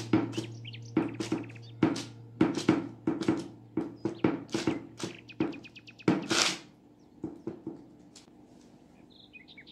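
A palm pats and presses balls of yeast dough flat on a paper-lined metal baking tray: a run of soft knocks, about two a second, that thins out after about six seconds. A steady low hum runs under the first six seconds.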